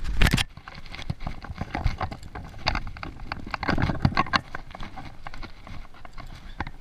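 Irregular knocks, clicks and clatter of someone moving about a carpeted boat deck and handling fishing gear, with a loud bump right at the start.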